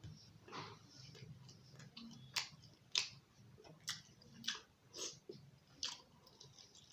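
A person chewing curry and roti with wet mouth smacks: about six sharp smacks, spaced half a second to a second apart, through the middle.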